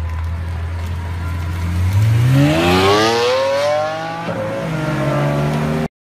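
Lamborghini Aventador's V12 engine idling low, then revving hard as the car pulls away. The pitch climbs steeply for about two seconds, drops once at a gear change and climbs again, before the sound cuts off suddenly near the end.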